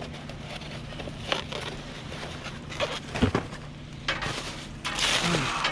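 Rummaging through packages in a dumpster: rustling plastic and scattered light knocks and clatter, with one sharper knock about halfway through and heavier rustling near the end.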